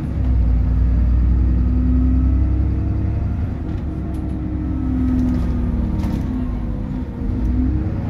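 Alexander Dennis Trident 2/Enviro 400 double-decker bus engine and drivetrain heard from inside the lower deck while under way. A heavy low rumble, with the engine note rising and falling as it pulls away and changes speed, and a brief easing off near the end.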